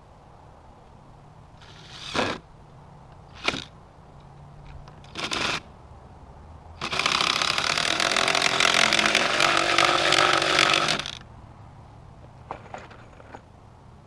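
Cordless drill driving a screw into wood: three short trigger bursts, then one long run of about four seconds as the screw is driven home.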